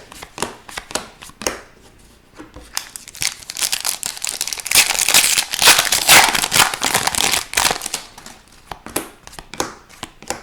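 Hockey trading cards and their crinkly packaging handled by hand. Light clicks and slides of the cards give way to a few seconds of dense crinkling in the middle, then more clicks near the end.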